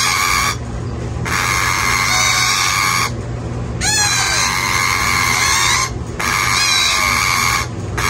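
Indian ringneck parakeet chick giving loud, harsh begging calls while being hand-fed from a syringe, in long rasping stretches broken by a few short pauses.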